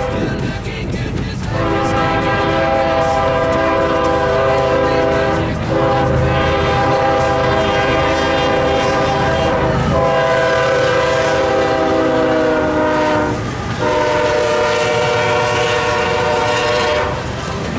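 Train passing with its multi-note air horn sounding in several long blasts, each a few seconds long with brief breaks, over the steady rumble of the train.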